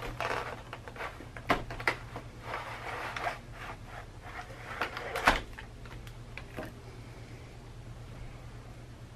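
Clear plastic packaging around a model locomotive being slid and handled, with rustling, crinkling and small plastic clicks. The loudest is a sharp knock about five seconds in, and it goes quieter near the end. A low steady hum runs underneath.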